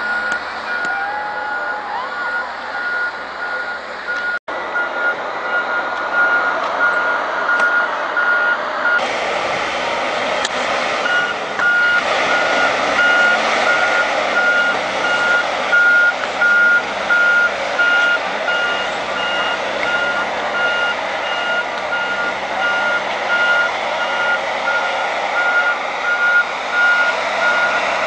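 Snow groomer's reversing alarm beeping over and over above the running engine, as the machine works back and forth pushing snow.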